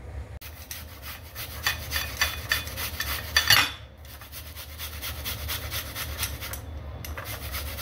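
A peeled apple being rubbed back and forth on a flat stainless-steel hand grater: a fast, even run of rasping strokes.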